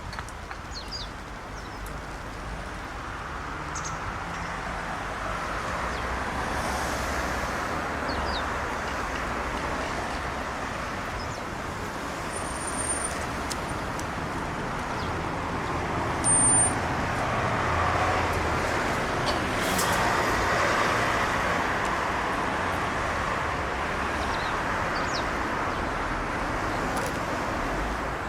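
Continuous road traffic noise, swelling and easing as vehicles pass, with a few faint short high chirps and two brief high-pitched squeaks.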